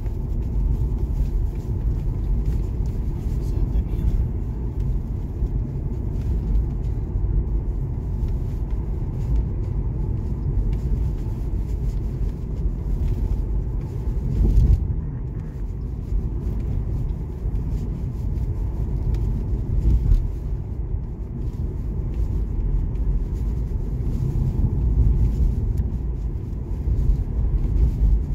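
Steady low road rumble inside a moving car's cabin, from the tyres and engine, swelling briefly louder a couple of times midway.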